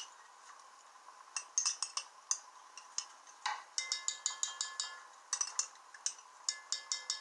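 A spoon stirring thick barbecue sauce and peach preserves in a pot on the stove, clinking against the pot's sides. It starts with a few scattered clinks, then from about halfway through comes a quick run of clinks at about five a second, each with a short ring, broken by a brief pause.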